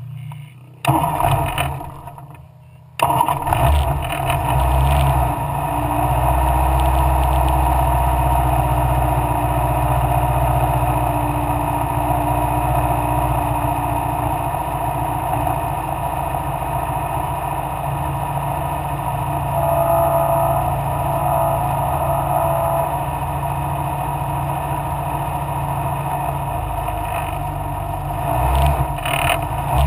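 Mallock Mk8B racing car's engine running. It cuts in suddenly, dips for a moment, then from about three seconds in runs loud and steady, wavering again near the end.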